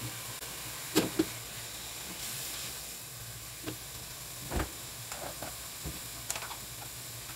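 Chopped onion, flaked fish and green bell pepper frying in oil in an aluminium pan, a steady sizzle. A couple of sharp clicks come about a second in, and a duller thump about halfway.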